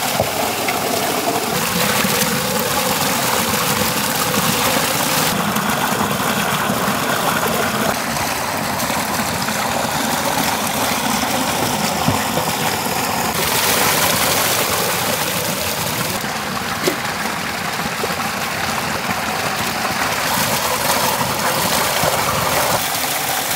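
Water pouring out of a large metal pot and rushing over stone, a steady loud splashing wash. Its character shifts abruptly several times.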